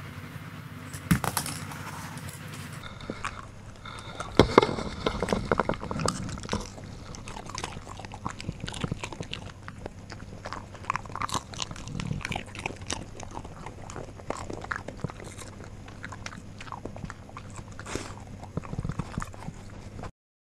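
Pembroke Welsh corgi chewing and gnawing on something hard: irregular crunches and clicks, with a sharp click about a second in.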